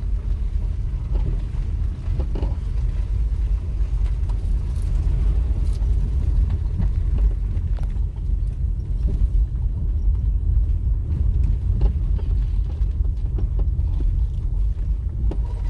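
Steady low rumble of a vehicle moving along the road, with engine and road noise and a few faint knocks.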